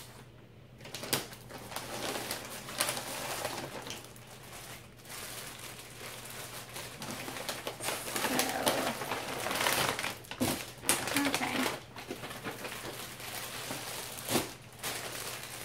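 Plastic packaging and wrapping crinkling and rustling as wrapped clothing is handled and pulled out of a box, with many small sharp crackles, louder for a few seconds past the middle.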